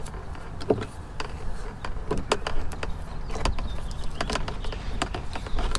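Electrical tape being pulled off the roll and wrapped around a cable and fish tape: irregular short clicks and rustles of tape and handling, over a low steady rumble.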